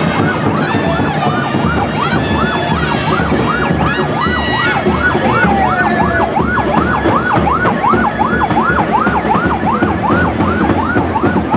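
Electronic siren on a vehicle in the procession, sounding a fast yelp: a rising-and-falling wail that repeats about three times a second throughout, over crowd noise.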